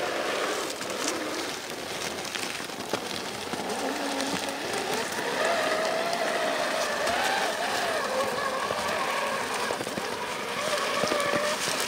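Traxxas TRX-4 scale RC crawler's electric motor and gears whining, the pitch rising and falling with the throttle as it crawls. Its tyres crunch over snow and sticks, with a few small clicks and knocks.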